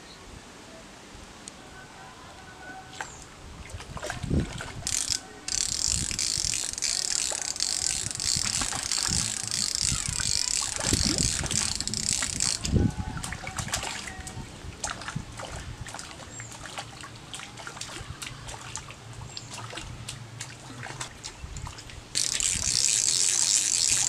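Fishing reel ratcheting in two long spells, the first starting about five seconds in and lasting some seven seconds, the second near the end, as a hooked rohu is played on the line. Heavy splashes of the fish thrashing at the surface come in between.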